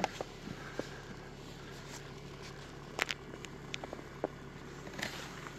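Snow being cleared off the back of a snow-covered car, with scattered short scrapes and soft knocks, the sharpest about three seconds in. A steady low hum runs underneath.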